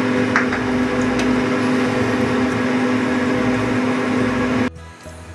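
Steady mechanical hum, as of a kitchen exhaust fan, over frying, with a couple of light clicks of a utensil against the pan. The hum cuts off suddenly near the end.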